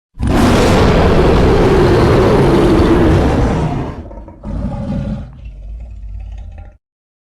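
Pitched-down kaiju monster roar sound effect: a loud, rough roar of about four seconds, then a shorter, quieter growl and a low rumble that cuts off abruptly about a second before the end.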